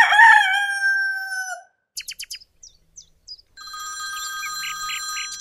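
A rooster crowing once, its call falling slightly in pitch, followed by a few light clicks. About two-thirds of the way through, a telephone starts ringing with a steady electronic ring.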